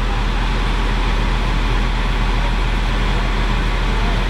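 Heavy diesel engine idling steadily, a constant low drone with an even rushing noise over it, most likely the fire engine parked at the scene.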